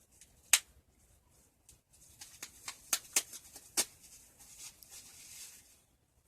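Handling noises from unpacking: one sharp click about half a second in, a quick run of clicks and taps partway through, then soft rustling.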